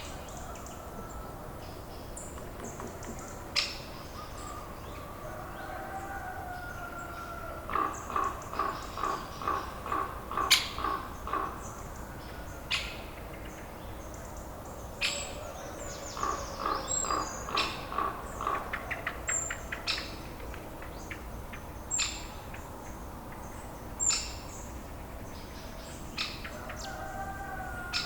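Farmyard birds calling. There are two runs of quick repeated calls, about three a second, with gliding calls between them and short high chirps scattered through.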